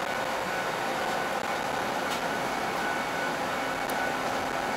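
Steady running noise of the Montreal Olympic Stadium tower funicular, heard from inside its cabin as it climbs the tower, with a couple of faint ticks about two and four seconds in.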